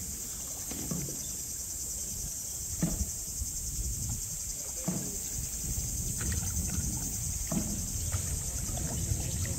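Double-bladed kayak paddle dipping and pulling through calm water in strokes roughly every two seconds. Under it runs a steady, high-pitched, pulsing drone of insects from the surrounding vegetation, over a low rumble.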